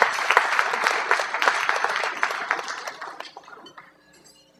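Audience applauding, dense clapping that dies away about three seconds in.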